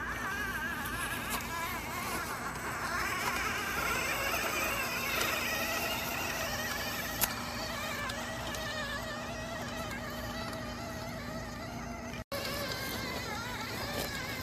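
Small electric motors of a Huina radio-controlled excavator whining, the pitch wavering up and down as they work, over a steady low hum. There is a single click about seven seconds in and a brief cut-out near the end.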